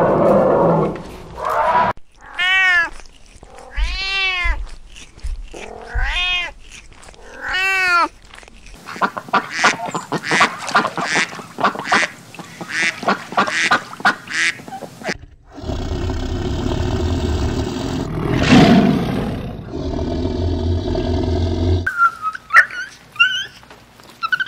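A run of different animal sounds. Four drawn-out calls that rise and fall come first. A flock of domestic ducks then quacks rapidly for several seconds. A steady rushing background follows with one loud burst, and high chirping calls come near the end.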